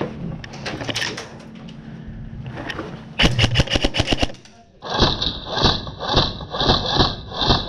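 Airsoft electric gun firing at close range: a rapid full-auto burst about three seconds in, then a run of evenly spaced shots, about three a second, with a ringing tone over them.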